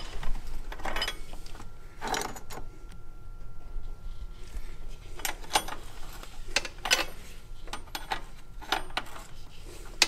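An adjustable wrench and metal fittings clicking and clinking as an inline fuel pressure gauge fitting is worked into place, about ten short, sharp, irregular knocks.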